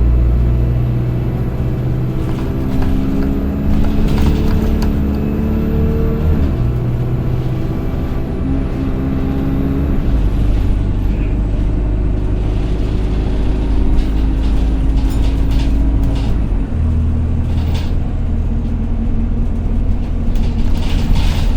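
Interior sound of an Alexander Dennis Enviro200 single-deck bus under way. Its diesel engine drones loudly, and the note shifts a few times as the automatic gearbox changes gear. A thin high whine runs over it, the vacuum-cleaner-like sound that earns this bus the name 'loud hoover', with occasional rattles and knocks from the body.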